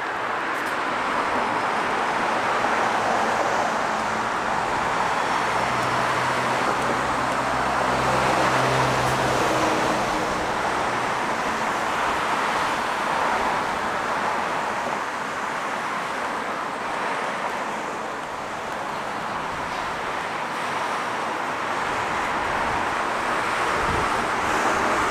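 Street traffic: cars passing steadily with tyre noise that swells and fades, and one vehicle's low engine hum for several seconds around the middle. A brief low thud comes near the end.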